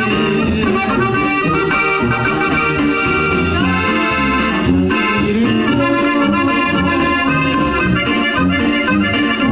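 Live regional Mexican band music led by accordion, with tuba bass and a steady beat underneath.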